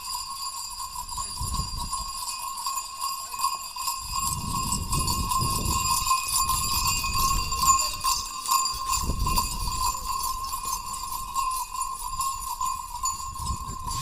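Khillari bullocks pulling a plough: jingling bells and hoof clops, over a steady high ringing tone, with low rumbles that come and go.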